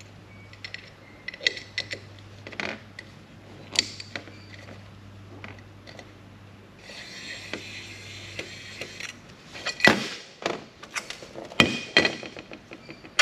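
Small cordless electric screwdriver running with a steady low hum while metal hard-drive parts click and tap. The motor stops about eight and a half seconds in, followed by a run of sharper knocks and clatter of loose metal parts.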